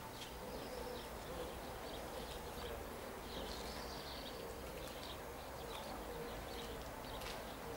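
Faint background ambience with scattered short bird chirps.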